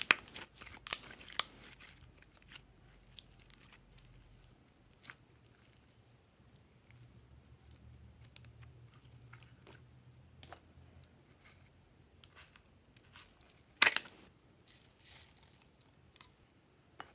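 Glossy slime being squeezed and worked by hand, giving scattered sticky clicks and pops. The pops crowd together in the first couple of seconds and again about fourteen seconds in, with quieter ticks between.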